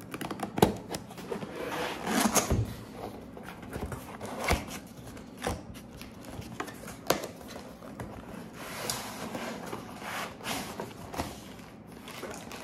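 Cardboard laptop box being opened by hand: a knife slits the sealing tape, then cardboard flaps and inserts are pulled open and handled, giving irregular scrapes, rustles, clicks and knocks.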